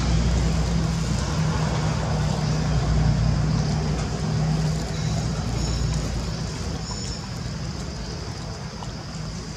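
A motor engine running with a steady low hum that fades away during the second half.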